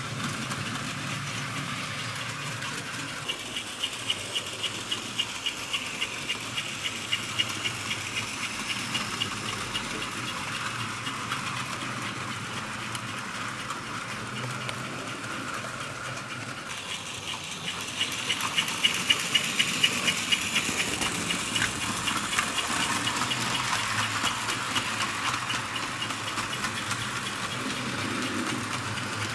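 Fleischmann HO model train running on tinplate track: a steady motor and wheel hum with rhythmic clicking of the wheels over the rail joints, about two clicks a second, in two runs, the second one louder.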